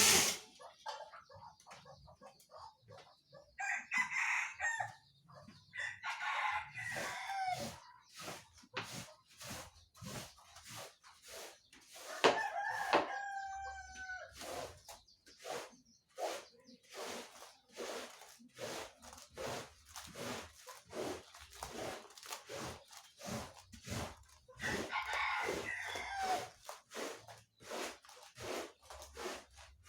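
Rooster crowing several times, the loudest crow about twelve seconds in, with many short sharp clicks and knocks throughout.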